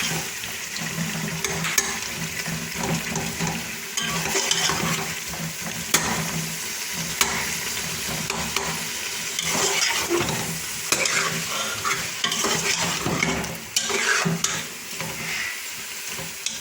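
A spoon stirring chicken and moringa drumstick pods frying in oil in a pot, with steady sizzling and scattered sharp clicks of the spoon against the pot.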